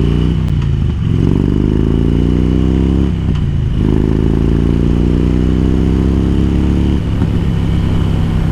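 Harley-Davidson V-twin motorcycle engine pulling away through the gears, heard from the rider's helmet microphone. Its pitch rises, drops back at a shift about a second in and again around three seconds, climbs once more, then settles into a steady cruise near the end.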